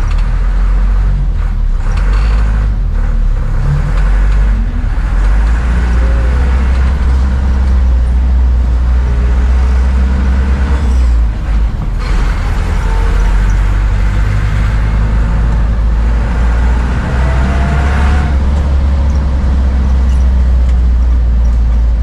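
City bus engine and road noise heard from inside the bus: a loud, steady low rumble that dips briefly about halfway through.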